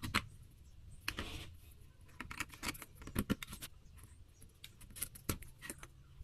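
Irregular small clicks and taps, some in quick runs, over a low steady hum.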